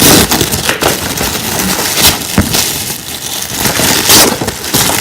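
Loud crinkling and rustling of wrapping paper being handled and pulled off a package, with sharper bursts of crackling near the start, about two seconds in and about four seconds in.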